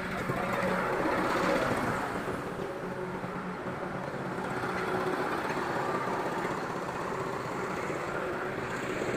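Diesel engine of a truck-mounted mobile crane running steadily while the crane handles a heavy steel fuel tank.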